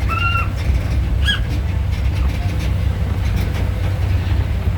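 A vehicle engine running with a steady low rumble. Two short high squeaks come in the first second and a half.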